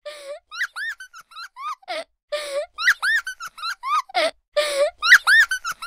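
Comedy sound-effect track: short squeaky calls that arch up and down in pitch, alternating with short laugh-like bursts in a quick, repeating pattern.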